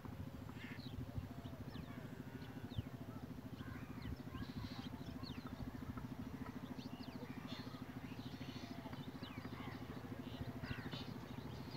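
Small birds chirping and twittering in short, quick calls, over a steady low pulsing drone.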